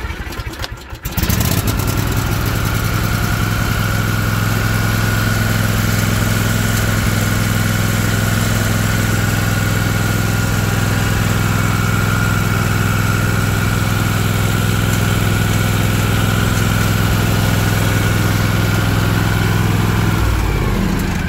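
Kawasaki FR691V V-twin lawn tractor engine, warm and lightly choked, starting and catching about a second in, then running steadily; near the end its speed drops.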